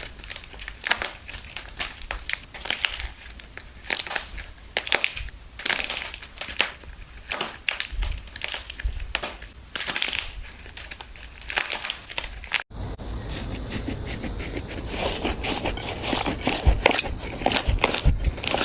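Crunchy slime being squeezed and pressed by hand, giving irregular crisp crackles and crunches. About two-thirds of the way through the sound cuts off for an instant and a denser run of crackling and popping follows.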